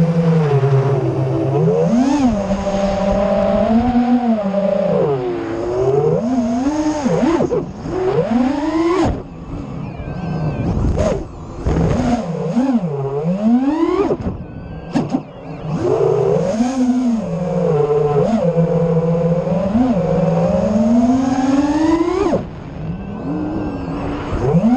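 FPV quadcopter's brushless motors and propellers whining, heard from the camera mounted on board. The pitch rises and falls constantly with the throttle, and the sound dips briefly three times: about a third of the way in, around halfway and near the end.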